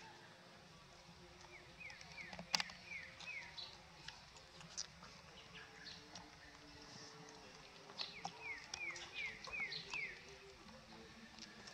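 Litter of puppies suckling at their mother's teats: faint, scattered smacking and clicking, with one sharper click about two and a half seconds in. Two runs of about five quick falling chirps, from a bird, come about two seconds in and again near eight seconds.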